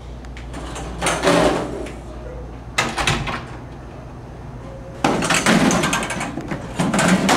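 Interior door being pushed shut, with a sudden knock about three seconds in. Bursts of rustling noise come before and after it.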